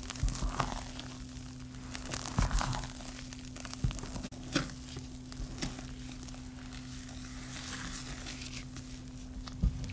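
Silicone spatula folding thick, wet cake batter in a glass bowl: soft squelching and scraping, with several sharper knocks against the bowl. A low steady hum runs underneath.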